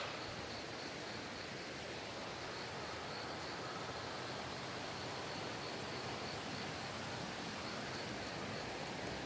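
Steady rushing of a mountain valley stream, an even hiss without breaks.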